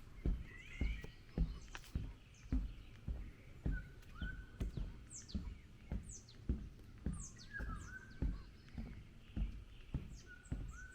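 Footsteps on a forest path at a steady walking pace, about two steps a second, with songbirds calling over them: repeated high chirps that fall in pitch and short whistled notes.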